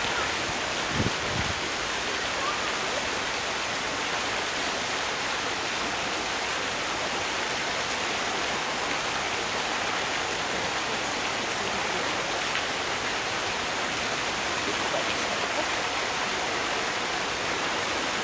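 Steady rush of running water, with a brief low thump about a second in.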